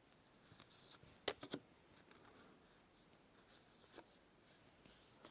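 Near silence with a few faint clicks and taps of small stiff cardboard cards being handled and laid on a table. The clearest are two clicks close together about a second and a half in, and one more near the end.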